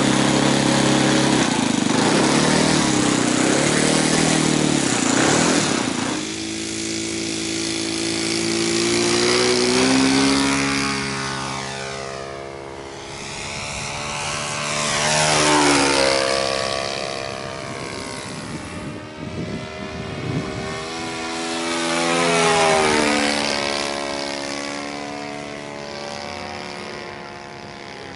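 Engine of a Top Flite 60-size P-51 Mustang radio-control model running at high throttle close by for about six seconds, then the plane flying off. Its engine note rises and falls in pitch and loudness as it makes two or three passes, the loudest about halfway through and again near the end.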